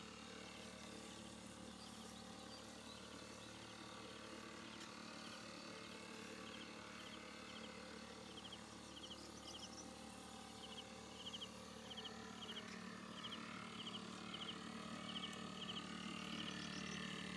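Faint rhythmic chirping: short runs of three or four quick chirps repeated a little more than once a second, over a steady low hum.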